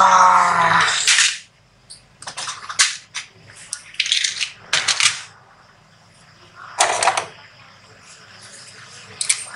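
A brief voice sound at the start, then a series of separate short clacks and rustles: a plastic box of snap fasteners is set down on a table and a fabric bag is handled.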